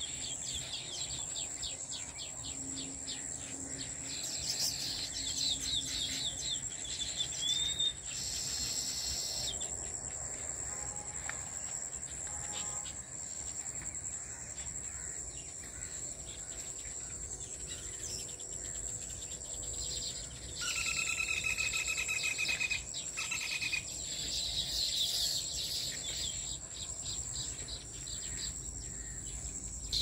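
Baya weaver colony chattering in rapid runs of chips, with a short curving whistle about seven seconds in, over a steady high-pitched insect trill. A steady held tone of about two and a half seconds comes in about two-thirds of the way through.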